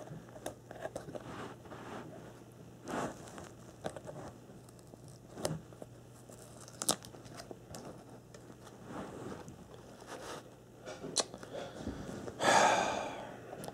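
Fingers scratching and picking at tape on a small cardboard box, with scattered light clicks and scratchy rustles of card and tape, and one louder rasp about a second before the end.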